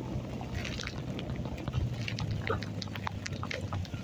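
Heavy rain while riding a motorcycle on a wet road: a steady wash of rain and tyre noise over a low, even engine hum, with scattered sharp ticks of drops striking close by.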